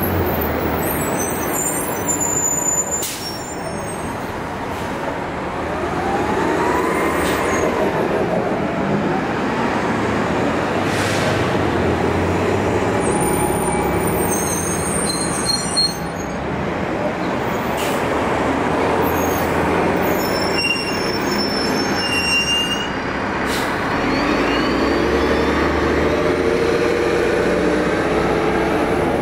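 City transit buses driving past at close range, their engines and drivelines running over steady traffic noise. A whine rises and falls as one bus goes by, and more rising whines come near the end as another pulls away. A few brief sharp sounds are mixed in.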